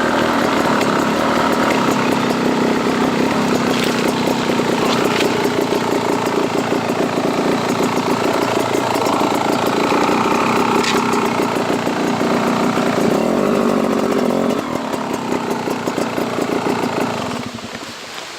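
Dirt bike engine running steadily as the bike rides along, easing off about fourteen seconds in and dropping lower near the end.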